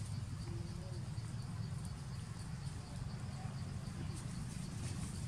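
Steady low rumble of outdoor ambience, with faint scattered ticks and no clear monkey calls.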